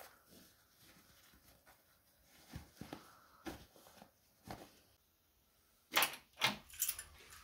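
Faint rustling of boot laces and denim, then about six seconds in a bunch of keys is lifted off a metal wall hook, clinking and jangling sharply four or five times.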